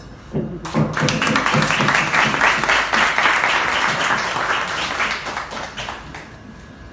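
Small audience clapping. It starts about half a second in and dies away near the end.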